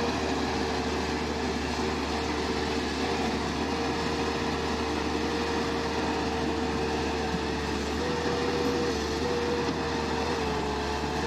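Heavy equipment engine running steadily with a held whine, which steps up slightly in pitch about eight seconds in.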